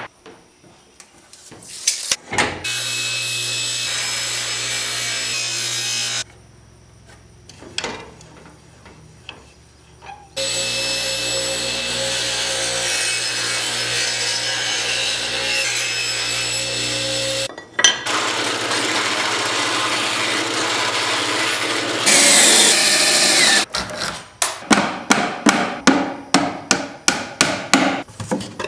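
Table saw running and cutting wood in a few long stretches with pauses between them. Near the end comes a quick run of rhythmic strokes of a hand tool on wood, about three or four a second.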